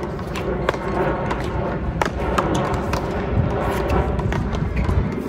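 Paddleball rally: sharp cracks of the ball struck by paddles and rebounding off the wall, irregularly spaced about half a second to a second apart, over a steady low rumble that drops away near the end.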